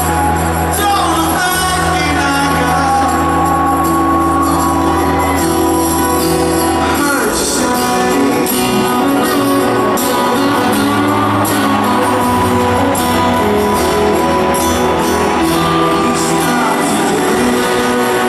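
Live band music over a stadium PA, loud and steady, with held chords that change every couple of seconds.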